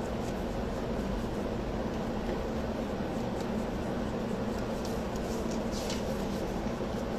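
Steady background hum of room noise, with a few faint short scratches in the middle.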